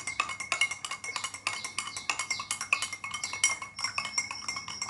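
A spoon stirring in a drinking glass, clinking rapidly and continuously against its sides, with a faint ringing of the glass.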